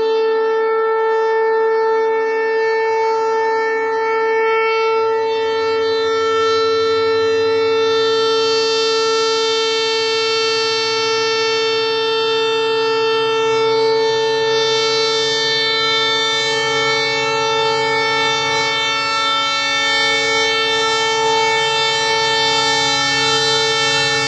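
Train horn blown in one long unbroken blast, two notes sounding together at a steady pitch. The low rumble of the approaching train grows beneath it from about a third of the way in.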